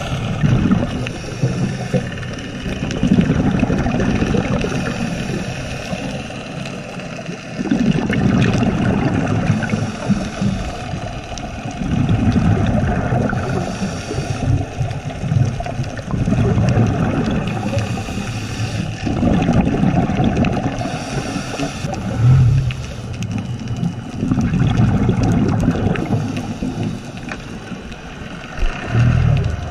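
Scuba diver's exhaled bubbles from the regulator, heard through the GoPro's underwater housing, coming in bursts of two to three seconds about every four seconds. The quieter gaps between bursts are the diver breathing in.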